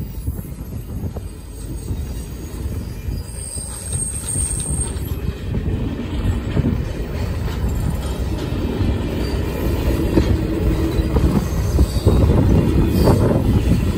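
Passenger train cars rolling past on jointed track, their wheels rumbling and clattering on the rails, growing steadily louder. A thin high wheel squeal comes in about four seconds in.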